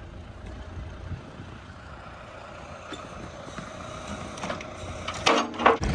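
A backhoe engine running with a steady low rumble that slowly grows louder, then loud metallic clanking and squealing starts about five seconds in.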